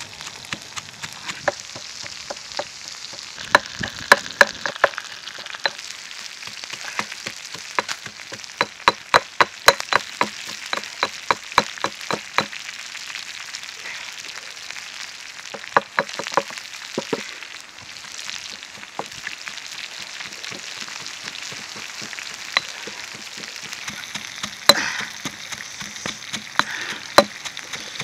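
Pestle pounding chillies and garlic in a stone mortar: runs of sharp knocks, about two to three a second, with pauses between the runs, over a steady hiss.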